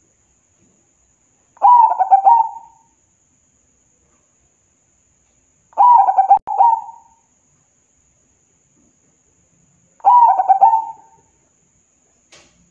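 Zebra dove (perkutut) cooing: three short, stuttering coo phrases, each about a second long, spaced about four seconds apart.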